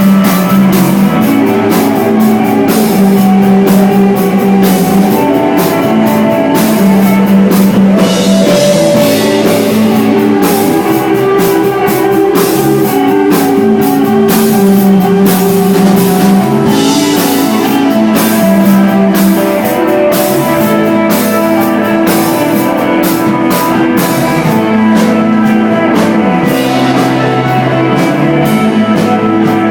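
Live desert rock band playing an instrumental passage: electric guitar, two bass guitars holding long low notes, and a drum kit keeping a steady beat.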